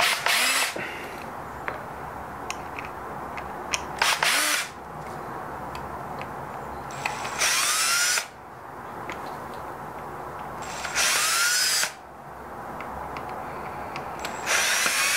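Cordless drill-driver whirring in five short bursts a few seconds apart, rising in pitch as each starts, backing out the Phillips screws that hold a coffee grinder's motor to its gearbox.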